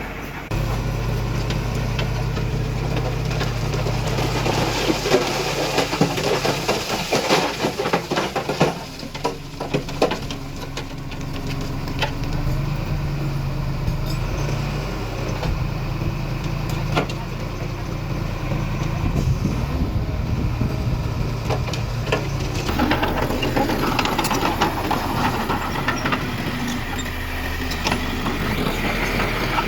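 Diesel engine of heavy earthmoving machinery running steadily, with scattered metallic clanks and knocks, most of them between about five and twelve seconds in.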